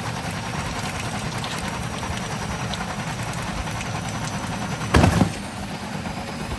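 Elin washing machine running with a steady low rumble, and a single loud thump about five seconds in.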